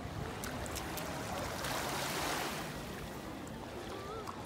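Seawater washing over a low steady rumble, swelling to a louder rush about two seconds in.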